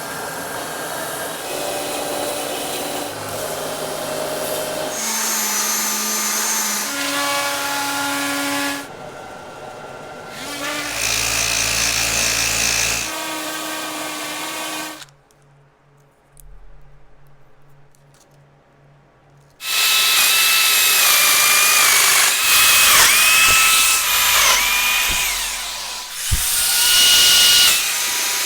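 Handheld electric power tools running in a series of separate bursts, each a steady motor whine at its own pitch. In the later bursts the whine dips in pitch several times as the tool is loaded.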